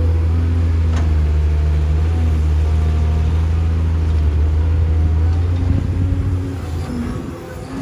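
Heavy diesel engine of construction machinery running steadily with a deep drone and a few faint higher tones above it, dying away over the last couple of seconds.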